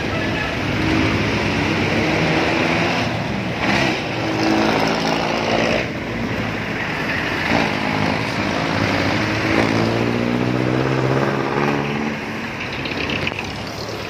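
Street traffic passing close: engines of passing vehicles, a jeepney among them, with engine notes that rise and fall over steady road noise.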